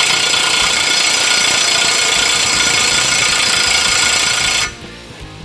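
Cordless impact wrench running hard with a steady buzzing hammer, then cutting off abruptly shortly before the end.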